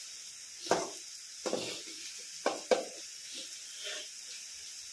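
Chopped onions sizzling in a metal kadai, with a steady hiss, while a metal spoon stirs them, scraping and knocking against the pan; the sharpest knocks come in the first three seconds.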